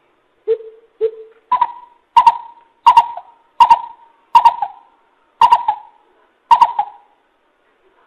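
Greater coucal giving a series of deep hooting calls. Two lower hoots come first, then about seven higher hoots at roughly even intervals, some of them doubled.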